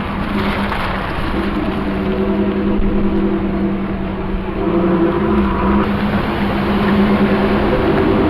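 Car engine and exhaust drone while driving at steady speed, with the engine note shifting up slightly and getting a little louder about halfway through.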